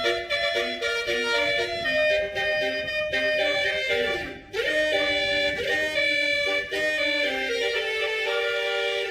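Basuri horn, a multi-tone melody vehicle horn, playing a song tune as a string of held, reedy notes, with a quick swoop down and up about four seconds in.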